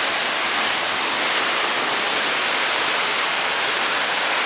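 Sea surf breaking on a rocky shore: a steady, even rush of white water.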